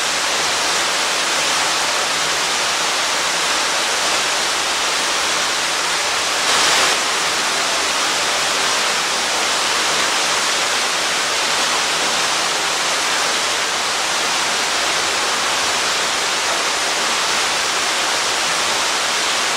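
Waterfall roar: a steady, dense rush of falling water close by, briefly louder about seven seconds in.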